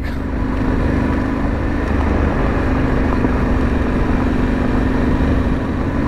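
Yamaha Ténéré 700's 689 cc parallel-twin engine running steadily at low speed, over a rough rumble of tyres on a gravel track.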